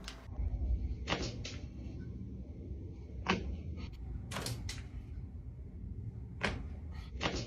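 A back being cracked underfoot: sharp pops and cracks from the spine and joints, about eight in all. They come as a pair, then a single pop, then a quick run of three, then two more near the end, over a low rumble of bodies shifting.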